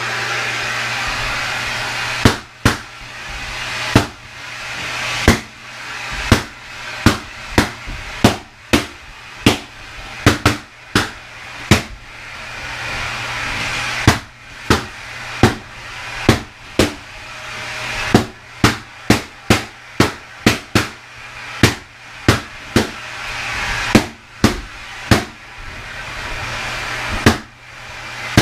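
Vacuum cleaner running steadily while balloons burst one after another at its wand, dozens of sharp pops at irregular intervals, sometimes several a second, louder than the motor.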